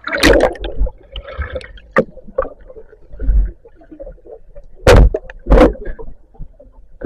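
Water splashing and gurgling in several loud, sudden bursts, near the start, about two seconds in and twice around five seconds in, with quieter rumbling water between them.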